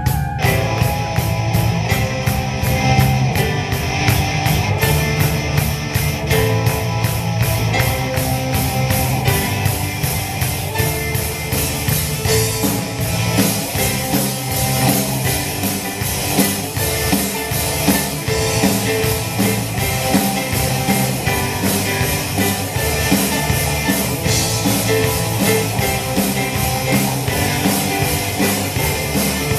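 A rock band playing live on drum kit, guitars and keyboard, a steady driving beat kept up throughout.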